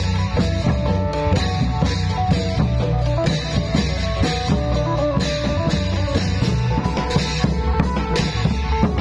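Isan klong yao long-drum band playing a lively procession tune: a plucked phin lute melody over driving drums and a heavy low end.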